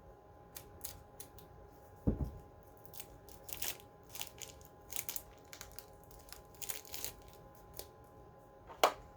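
Hands putting batteries into a plastic smoke alarm: scattered clicks and short crinkling rustles, a dull thump about two seconds in and a sharp snap near the end.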